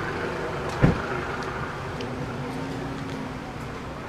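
Street traffic noise from a busy road, with one sharp thump about a second in.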